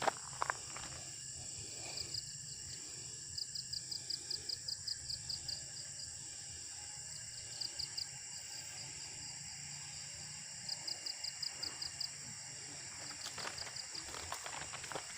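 Night insect chorus: a steady high buzz, with a cricket-like chirp in quick, even pulses, about seven a second, that starts and stops in short trains several times. A few footsteps near the start and the end.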